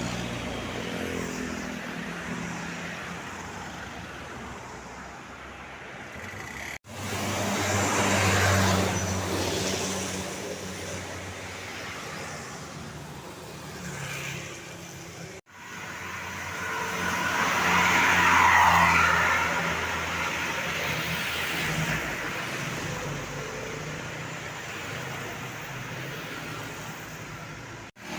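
Heavy vehicles, buses by the look of the video, passing on a road: engine drone and tyre noise swell up and die away twice, loudest about two-thirds of the way in. Two abrupt cuts split the sound into three clips.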